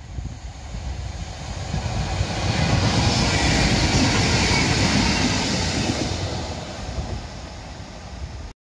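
Freightliner Class 66 diesel-electric locomotive passing close by: its engine and wheels grow to a loud rumble about three to five seconds in, then fade as it moves away. The sound cuts off suddenly near the end.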